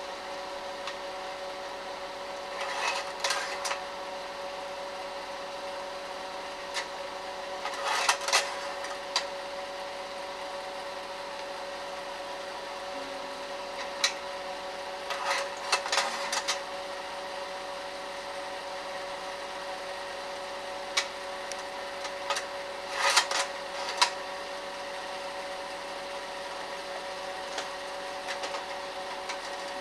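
Slide projector running with a steady motor-and-fan hum, broken by short clusters of mechanical clicks and clacks, roughly six of them at irregular intervals, as the slides are changed.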